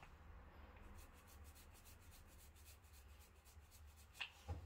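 Faint rubbing of a small paint roller being rolled back and forth through paint on the ridged grid of a plastic paint tray, over a low steady hum, with two faint taps near the end.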